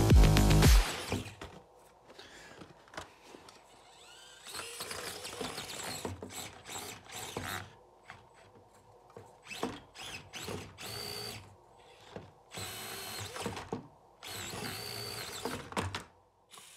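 Music cuts off in the first second. Then a mini RC crawler's small electric motor and gears whine in several short bursts of throttle, the pitch rising within a burst, with light clicks and knocks of the plastic truck on the wooden steps as it climbs and tips over.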